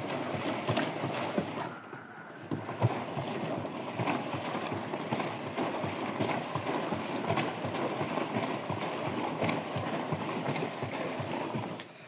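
Electrolux top-loading washing machine drum turning with water inside: water sloshing and splashing steadily inside the drum during a cleaning run.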